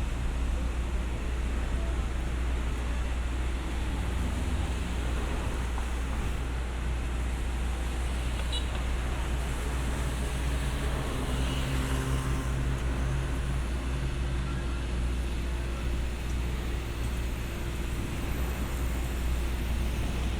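Steady city street traffic noise with a constant low rumble; a vehicle engine hum comes up in the middle and fades again.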